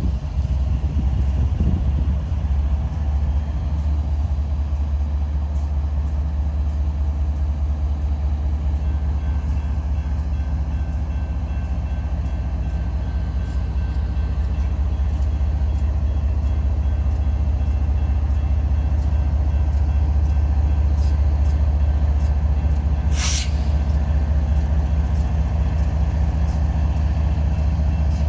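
BNSF freight train rolling past with a steady, deep diesel-locomotive rumble. Regular clicks from the wheels on the track build through the second half. A brief high-pitched burst comes about three quarters of the way through.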